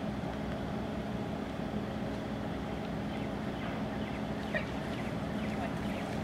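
A steady machine hum, like a motor running, holding one even pitch, cutting off suddenly at the very end, with a few faint high chirps over it.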